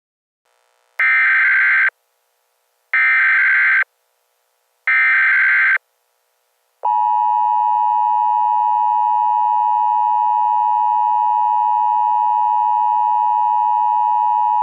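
Emergency Alert System opening: three short, screechy SAME header data bursts about a second apart, then the steady two-tone EAS attention signal held for about eight seconds before it cuts off.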